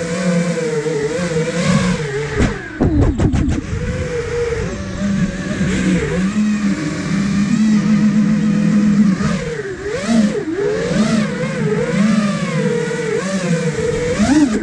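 Motors and propellers of an iFlight Nazgul Evoque F5, a 5-inch FPV quadcopter, buzzing as heard from its onboard camera, the pitch rising and falling with the throttle. About three seconds in, a quick cluster of sharp knocks and a low rumble break in.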